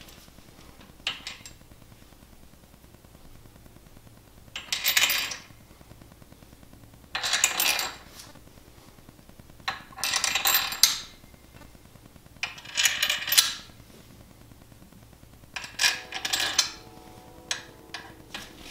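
Steel main bearing bolts clinking and rattling as they are dropped into the main caps of a BMW N54 engine block and started by hand, a short metallic rattle every two to three seconds. A brief metallic ring near the end.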